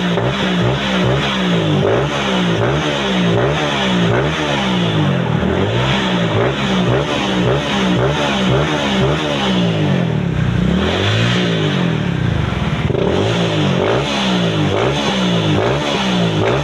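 Honda Vario 125's fuel-injected single-cylinder four-stroke engine, ported and tuned, revved in quick repeated blips of the throttle, about one and a half a second. Around two-thirds of the way through it makes one slower, longer rise and fall.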